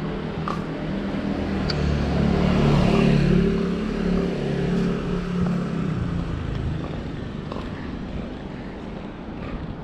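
A motor vehicle driving past: its engine hum grows louder to a peak about three seconds in, then fades away by about six seconds, leaving steady street noise.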